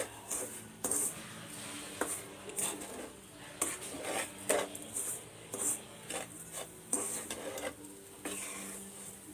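Metal spoon scraping and knocking against a cooking pan in irregular strokes as grated coconut and sugar are stirred together for coconut burfi.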